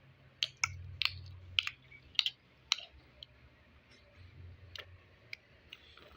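A scatter of small, sharp clicks and taps at irregular intervals, most of them in the first three seconds, over a faint low hum.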